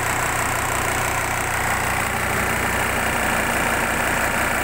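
Volvo Penta inboard boat engine idling steadily, heard up close in the open engine compartment, with an even low pulsing.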